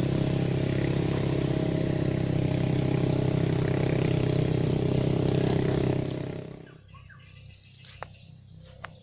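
An engine running steadily at a constant pitch, fading away about six seconds in. Quieter outdoor background with a couple of faint clicks follows.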